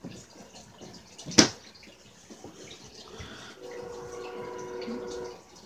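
A single sharp click about a second and a half in, among faint rustling, then a steady hum made of several tones for about a second and a half near the end.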